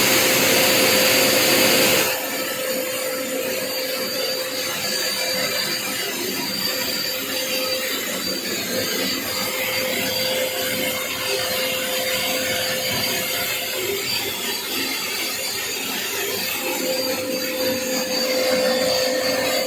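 Construction shop vacuum cleaner running, with a steady motor whine and rushing air. About two seconds in its sound drops in level and turns rougher, then it runs on evenly.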